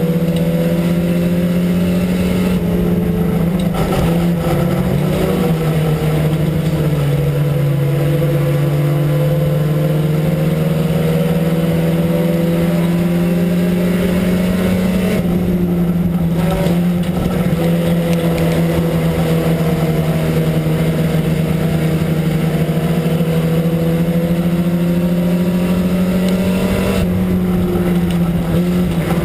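Four-cylinder IMCA sport compact race car engine, loud from inside the cabin, held at high revs under racing load. Its pitch sags a few seconds in, stays lower for several seconds, climbs back up, and dips briefly again near the end as the throttle eases off and comes back on.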